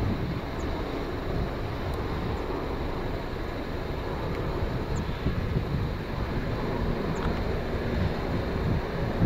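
Boeing 787-9 airliner's jet engines giving a steady, low rumble as it passes overhead, mixed with wind buffeting the microphone.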